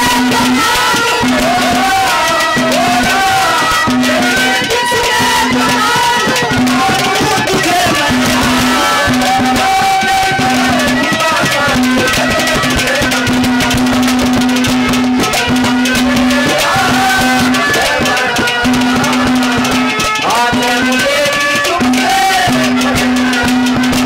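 Live Haryanvi ragni accompaniment: harmonium melody over a repeated steady note, driven by dholak drums and jingling hand percussion.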